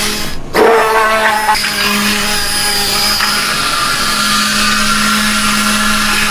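Handheld immersion blender running steadily in a large pot of raw eggs, a constant motor hum with a whir, broken off briefly about half a second in.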